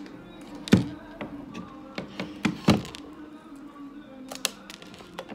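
Hard plastic knocks and taps as a pink plastic toy tube is handled and parts are pressed onto its sides. The two loudest knocks come about a second in and just under three seconds in, with lighter clicks after them. Music plays in the background.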